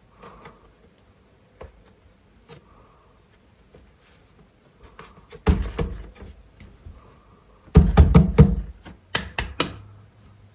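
Hands handling air-dry clay and its packaging, making clusters of quick soft knocks and taps. The clusters come a little past the middle, about eight seconds in (the loudest), and near the end, with faint scattered taps between them.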